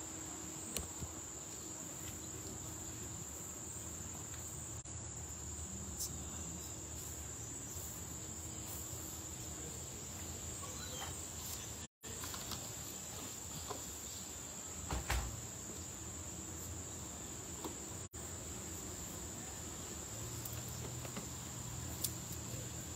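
Steady high-pitched drone of summer insects, with a faint outdoor background; the sound cuts out for an instant twice.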